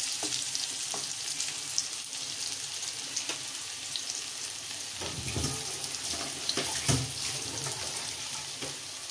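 Boiled potato pieces sizzling in hot oil in a karahi, with a steady frying hiss. About halfway through, a utensil stirs the potatoes and knocks against the pan.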